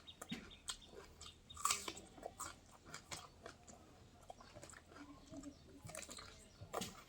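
A person chewing and biting food close to the microphone: irregular wet mouth clicks and crunches.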